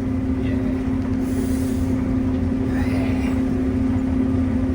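Combine harvester running steadily while harvesting beans: a constant mechanical drone with a steady hum, and a brief hiss about a second in.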